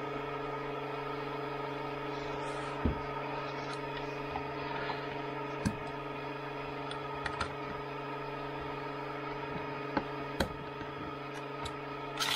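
Scattered sharp clicks and taps of a metal tool prying at the bent-over tabs of a Toyota Aygo power steering ECU's metal case, over a steady electrical hum.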